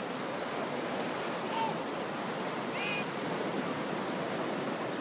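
Steady wash of surf on the shore, with a few faint short high chirps over it.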